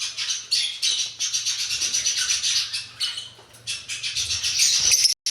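A flock of small aviary birds chirping and chattering in quick, overlapping calls, with the sound cutting out briefly near the end.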